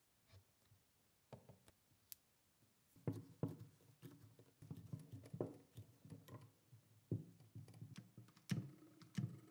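Faint, irregular knocks, taps and clicks of hard objects being handled and set down, a few scattered ones at first, then a busier run from about three seconds in, the loudest knock near the end.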